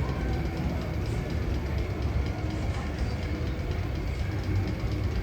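Steady low rumble with faint rapid clatter, as of a roller coaster train rolling along its track.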